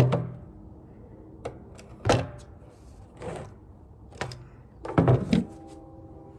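A handful of hollow knocks and clunks from handling a 55-gallon barrel and its freshly cut-off top, with a brief ringing after the last ones about five seconds in.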